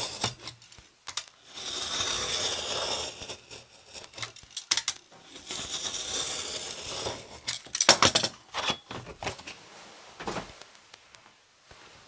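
Craft knife blade drawn along a steel ruler, cutting through heavy paper on a cutting mat. There are two scratchy cuts, each a second or two long, about 1.5 s and 6 s in. Sharp clicks and knocks follow around 8 s as the ruler and paper are handled.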